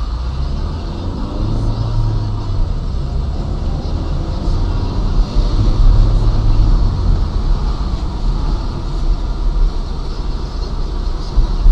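Steady low rumble of a car driving, heard from inside the cabin, with tyres hissing on a wet road.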